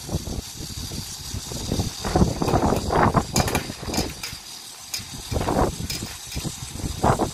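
Typhoon wind gusting hard against the microphone in irregular surges, each gust swelling and dying away within a second or two.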